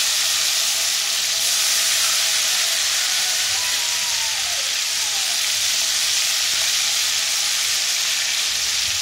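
Marinated chicken kabab pieces deep-frying in hot oil in a metal kadai, a steady sizzle.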